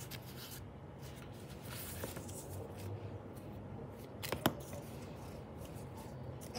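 Paper notepads being handled and laid on a wooden table: faint rustling of paper, with a couple of sharp clicks close together about four seconds in.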